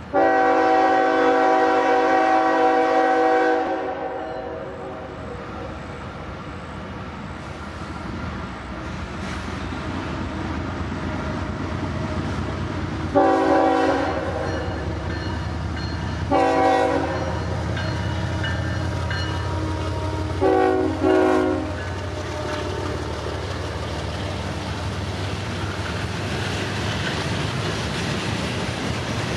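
Lead locomotive of a CSX freight train sounding its multi-tone air horn for a grade crossing: one long blast, then after a pause three short blasts a few seconds apart, the last broken in two. Between and after the blasts the diesel locomotives rumble past and a long string of freight cars rolls by on the rails.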